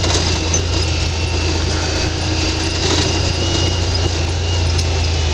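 UTV engine running steadily as it crawls over rough trail, a constant low drone with a thin high whine over it.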